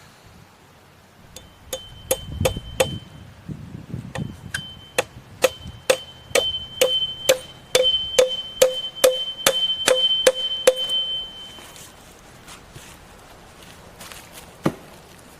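A nail being hammered through a green pole into a log, about two to three blows a second for some nine seconds, each strike ringing with a metallic ping. One more single knock near the end.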